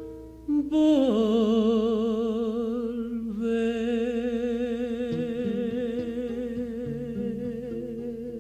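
Male singer holding two long notes with wide vibrato, the first sliding down into place about a second in, over acoustic guitar picking bass notes underneath.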